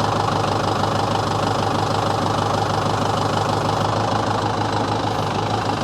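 Loader tractor's engine running at a steady idle while its hydraulics pull a chain to roll a log on the sawmill.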